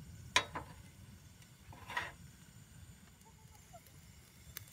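A flat frying pan set down on a portable gas stove's grate with a light knock about half a second in, and a second brief sound near two seconds. Under it runs a steady low wind rumble, with a few faint chirps later on.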